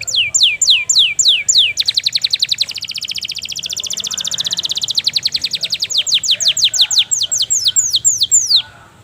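Domestic canary singing: a series of downward-sweeping high notes about four a second, then a fast rattling trill, then more downward sweeps that stop abruptly near the end.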